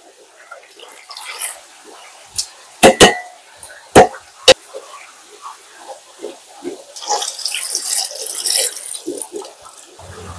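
Water splashing and running in a kitchen sink, with four sharp knocks between about three and four and a half seconds in, and a burst of hissing water from about seven seconds in.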